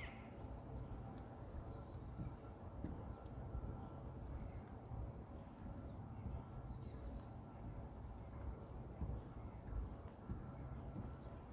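A small bird calling: a long run of high, thin chirps repeated about every three-quarters of a second, over a low rumble.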